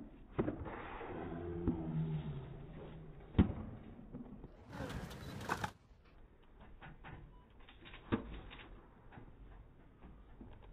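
Tennis balls struck by rackets: a few sharp pops, the loudest about three and a half seconds in and another near eight seconds, over a low murmur from the stands.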